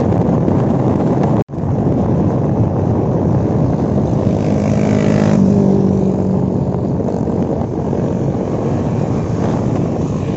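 Motorcycles riding on the road, with heavy wind rush on the microphone over the engine noise. The sound drops out for a moment about a second and a half in. A single motorcycle's engine note stands out for about a second and a half around the middle.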